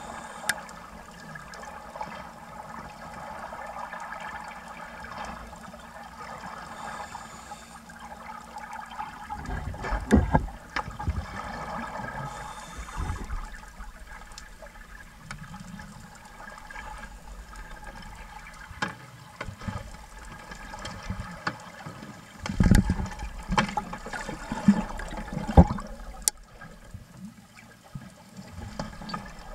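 Water and bubbling heard underwater: scuba divers' exhaled bubbles, with louder irregular bursts of bubbling about ten seconds in and again in the last third.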